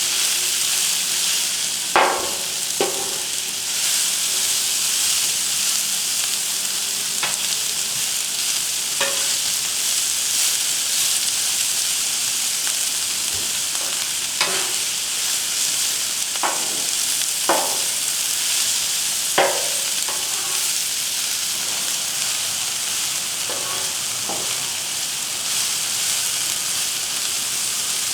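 Mushrooms, red onion and green bell pepper sizzling in vegetable oil on a Blackstone flat-top griddle, a steady hiss, while a metal spatula scrapes and clinks against the griddle about ten times as the vegetables are stirred.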